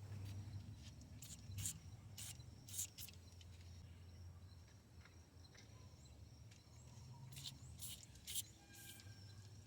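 Near silence: a faint low hum with a few scattered, faint clicks.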